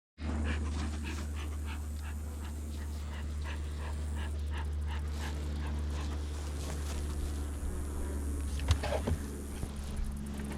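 Rapid rhythmic panting, about two to three breaths a second, over a steady low hum; a few sharp knocks near the end.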